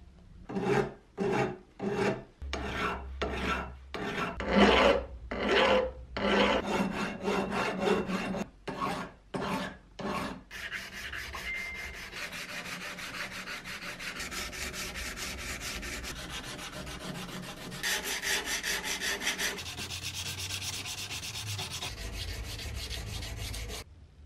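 Sandpaper being rubbed by hand over a steel axe head to smooth out blow marks. For about the first ten seconds it comes as separate scraping strokes, about two a second. Then it turns into a fast, continuous scrubbing.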